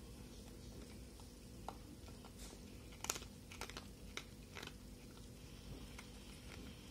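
Cat eating dry kibble from a plastic bowl: faint, crisp crunches as it chews. They come irregularly and bunch together about halfway through.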